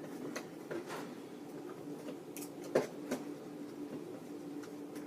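Toy packaging being handled: light clicks, taps and rustles of plastic and cardboard, with one louder knock a little past halfway.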